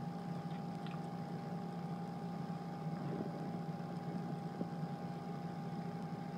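Steady low electrical-sounding hum with a few fixed tones over a faint even hiss, broken only by a couple of faint soft ticks.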